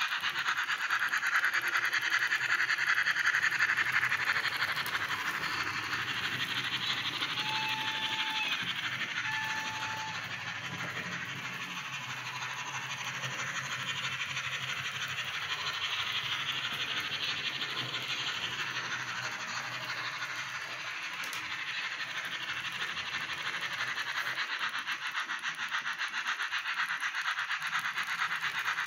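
Sound decoder in a Roco H0 model steam locomotive (ESU LokSound 2) playing steam chuffing through its small, tinny speaker as the model runs, mixed with the rattle of its wheels on the track. Two short whistle tones come about seven and nine seconds in.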